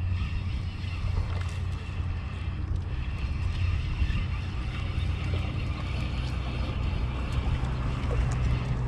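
Steady low rumble of wind buffeting the camera microphone.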